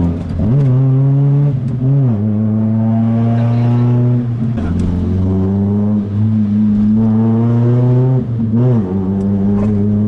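VAZ-2114's exhaust droning loudly at a steady low engine speed while driving, with short rev blips about half a second, two seconds and nearly nine seconds in, and a drop in pitch around four and a half seconds in.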